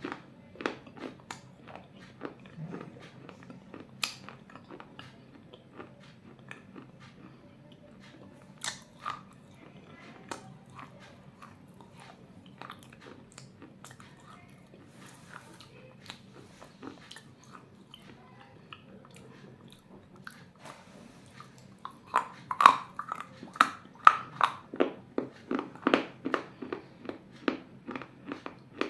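Pieces of a baked clay bowl being bitten and chewed close to the microphone: scattered small crunches at first, then, near the end, a fast run of loud crunches, several a second.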